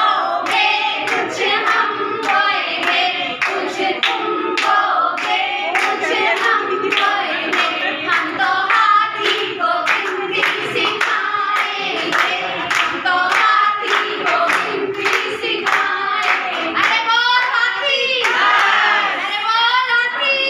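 A group of women singing a Hindi children's counting action song together, clapping along with frequent sharp hand claps.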